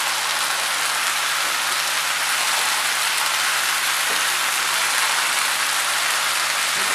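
Mushroom masala sizzling steadily in a pan over a high flame.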